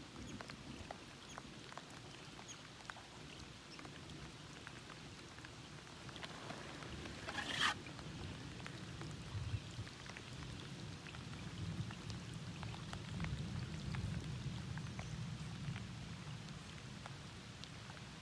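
Light rain pattering, many scattered drop ticks over a low steady noise. A brief rush of noise rises about seven and a half seconds in and cuts off sharply.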